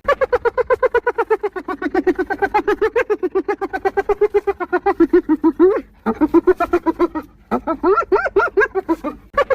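Spotted hyena giggling: a fast run of short, pitched yelps, about eight a second, in long bouts broken by short pauses about six and seven and a half seconds in.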